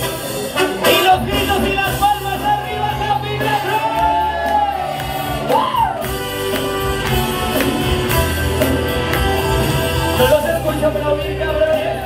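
A pop song's backing track playing loudly through a club's sound system, with a wordless vocal line over it and shouts from the audience.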